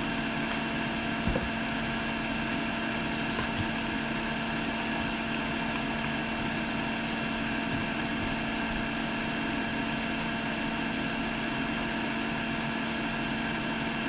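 Steady hum of a running fan or small motor with a constant low tone and faint high whines, unchanging throughout; a light tick about a second in.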